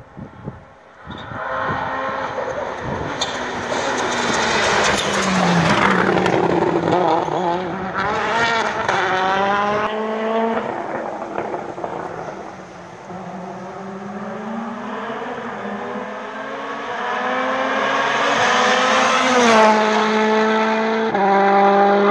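Citroën C3 WRC rally car driven hard along a winding road, its turbocharged four-cylinder engine climbing in pitch through the gears and dropping off between corners. It grows loud a few seconds in, fades a little through the middle, then swells again and steps down sharply through downshifts near the end.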